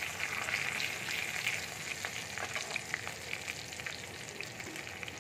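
Panch phoron and a bay leaf sizzling in hot oil in a wok: a steady frying hiss with scattered sharp crackles.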